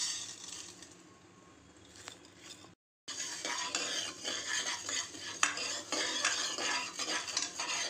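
Fenugreek seeds tipped into a hot pressure pan with a soft, fading hiss. After a brief break, a steel ladle scrapes and clinks against the pan as it stirs the seeds to dry-roast them, with the seeds rattling over the metal.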